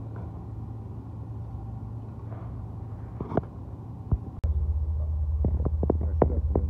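A steady low rumble that steps up louder about four seconds in, with a run of sharp clicks and taps after that.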